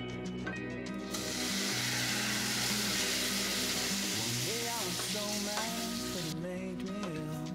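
Raw shrimp sizzling in hot melted butter in a stainless steel pot, stirred with a wooden spatula. The sizzle starts suddenly about a second in, as the shrimp go into the butter, and drops away shortly before the end. Soft background music plays underneath.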